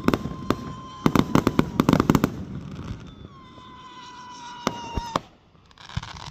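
A string of firecrackers popping in a rapid, irregular run for about two seconds, followed by a couple of single sharp bangs. A long high tone, falling slightly in pitch, sounds through the second half.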